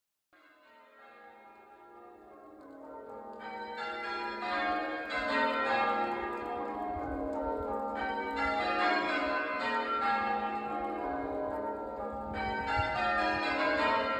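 Church bells ringing in overlapping peals, fading up from silence over the first few seconds.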